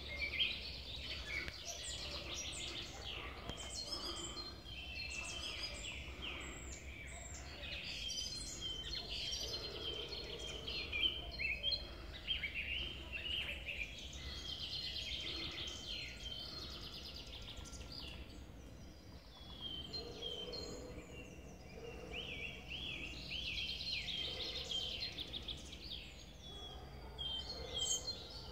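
Morning chorus of several songbirds singing and chirping over one another, with many short, quick phrases overlapping throughout. A steady low rumble runs underneath.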